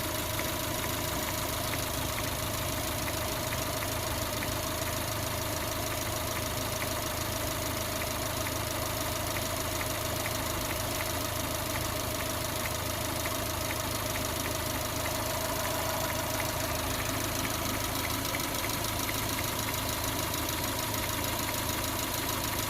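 2011 Subaru Outback's boxer engine idling warm, with a steady, regular knock that the owner traces to cylinder 1 and that appears after warm-up.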